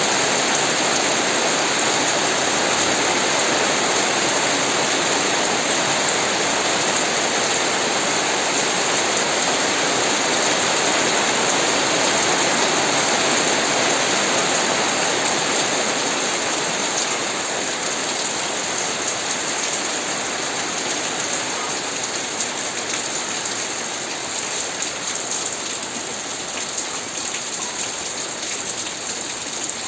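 Steady rain falling, a dense hiss that eases a little in the second half, with single drops standing out more near the end.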